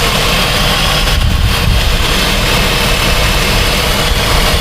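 Freshly rebuilt 3.7-litre V6 of a 2006 Jeep Grand Cherokee idling steadily just after its first startup, while air is being burped out of its cooling system.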